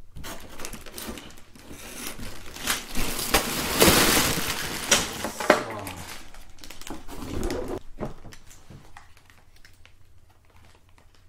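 Packaging of a large LEGO Technic set being opened and handled: crinkling and rustling with sharp cracks and clicks, loudest in the middle and fading to quieter handling near the end.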